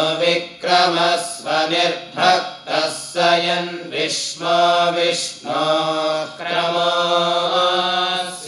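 Several young men chanting Vedic mantras together, a steady recitation broken into syllables with some long held notes.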